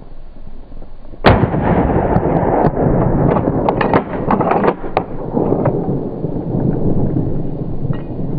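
A single gunshot about a second in, followed by a loud, continuous rough rumble with many scattered sharp clicks.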